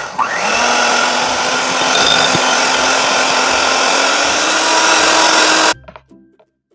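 Electric hand mixer running steadily at speed, its two wire beaters whipping cream and condensed milk in a glass bowl toward soft peaks; a steady motor hum under loud whirring, which cuts off suddenly nearly six seconds in.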